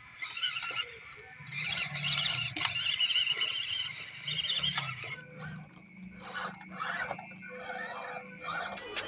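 Scale RC crawler trucks' small electric motors and gearboxes whining and squealing in uneven spurts as they crawl over logs.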